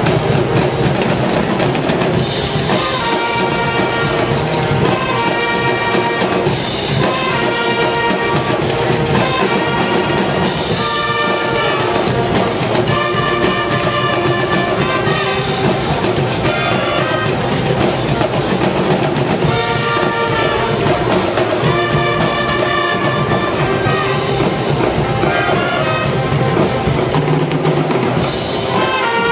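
High school pep band playing live: trumpets, trombones, saxophones and a sousaphone over a drum kit and marching drums, in repeated short brass phrases.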